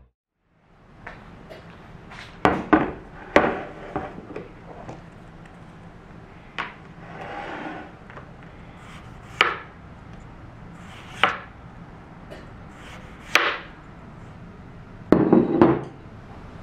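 Scattered sharp knocks and clacks, about a dozen at irregular intervals with a quick cluster near the end, over a faint steady background hum.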